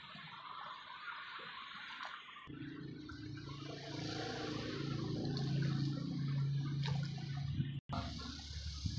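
Liquid gypsum plaster slurry poured from a plastic bucket onto a tile mould, a wet pouring and splashing sound. About two and a half seconds in the sound changes abruptly and a low steady hum runs under it, and it cuts out for an instant near the end.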